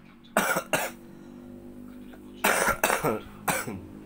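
Coughing: two quick coughs just after the start, then a run of three more about two and a half seconds in.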